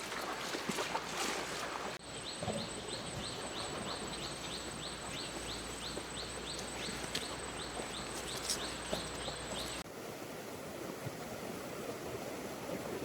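Steady rushing of a flowing river. A few light knocks come in the first two seconds. From about two seconds in, a high chirp repeats about three times a second and stops suddenly near the end, where the water noise changes character.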